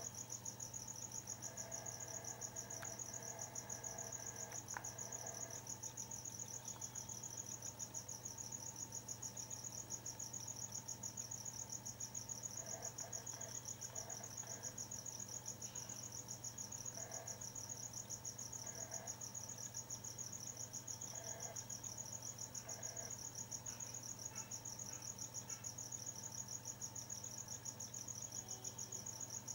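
Crickets chirping in a continuous high-pitched trill with rapid, even pulsing.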